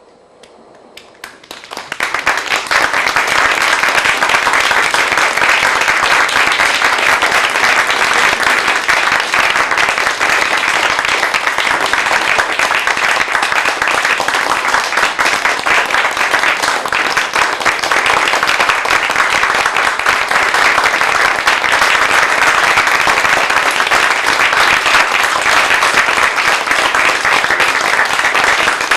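Audience applauding: the clapping starts about a second and a half in, swells within a second or two, then goes on steadily.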